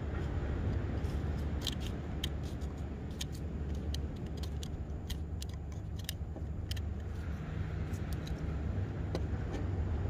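Scissors snipping through sea mustard (miyeok) stalks and frilly sporophylls, giving short sharp clicks at irregular intervals, over a steady low rumble.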